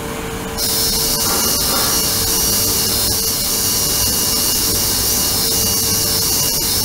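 Ultrasonic cleaning tank's transducers switching on about half a second in: a loud, steady high hiss from the cavitating water, with a faint wavering whistle in it, over a steady low hum.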